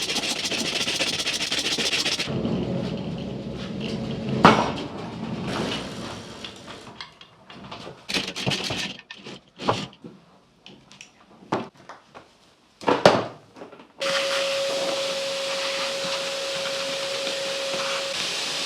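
Heavy Land Rover rear axle being manhandled onto a workbench: scraping and shuffling, one loud metal clang about four and a half seconds in, then scattered knocks and thuds. Near the end the sound switches suddenly to a steady hum with a constant tone.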